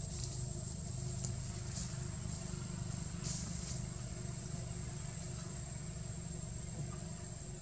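A steady low engine-like rumble under a constant high-pitched whine, with a few brief high chirps, the strongest about three seconds in.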